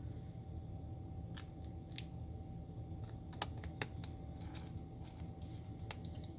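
Small screwdriver driving a tiny M.2 retaining screw into a laptop motherboard: a dozen or so light, irregular clicks over a faint steady hum.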